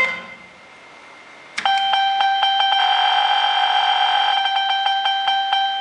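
Electronic sound effect from a fruit-machine game board: about a second and a half in, a steady synthesized beep tone with several overtones starts and holds, crossed by regular clicks, as the board's lamps run around the ring during play.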